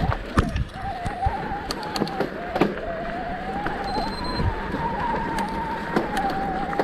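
Bicycle rolling fast downhill: a steady whine that wavers up and down in pitch, with sharp knocks and rattles as the bike goes over bumps.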